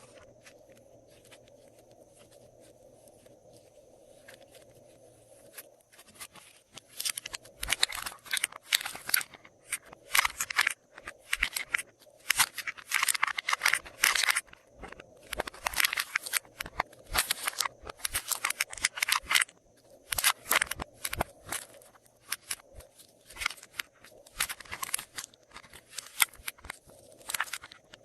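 Glossy slime being mixed: dense runs of sticky clicks and crackles in bursts of a second or two. They start about six seconds in, after quieter handling.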